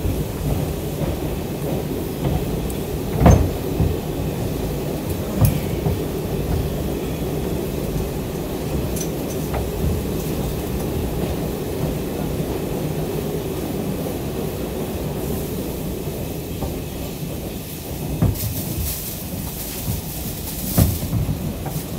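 Steady rumble of an R142 subway car running on the rails, heard from inside the car, with a few sharp clanks: the loudest a little over three seconds in, one more a couple of seconds later, and two more near the end.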